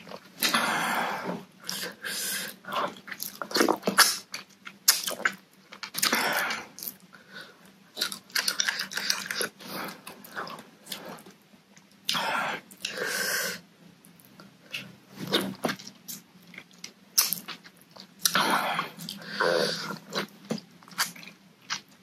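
Close-miked eating sounds of a person eating spicy papaya salad with her fingers: wet chewing and lip-smacking with many small clicks, and several longer, louder mouth sounds as she sucks her fingers.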